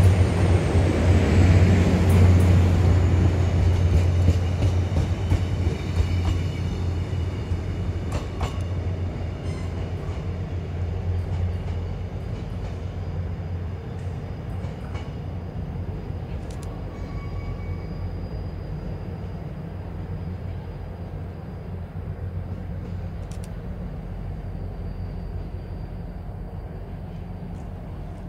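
KORAIL passenger train pulling out and running away down the line. Its rumble fades steadily, with a few faint clicks from the wheels.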